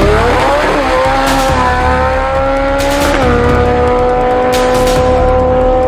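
Drag racing car launching off the start line and accelerating down the strip. Its engine pitch climbs steeply in the first second, holds high, drops slightly at a gear change about three seconds in, then runs steady at high revs.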